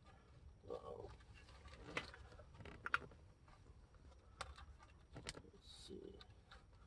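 Faint scattered clicks and taps, a handful of sharp ones, from hands unplugging and handling wiring connectors at an HEI distributor.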